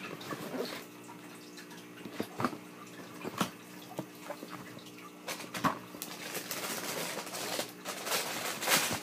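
Packaging being handled: scattered taps and rustles that turn into denser, steady rustling about halfway through, over a low steady hum.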